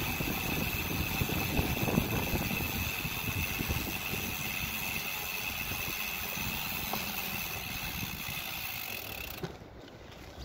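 Bicycle riding noise: tyres rolling over paving stones and the bike rattling over the joints, with a steady high whine. The noise drops suddenly about a second before the end.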